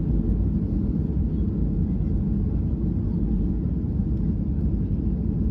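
Cabin noise of a Boeing 737-800 landing on a wet runway: a steady, low rumble heard from inside the passenger cabin, easing slightly in loudness toward the end.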